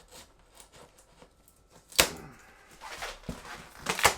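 Cardboard box and packaging being opened and handled: short rustles and scrapes, with a sharp knock about two seconds in and a cluster of knocks and scrapes near the end.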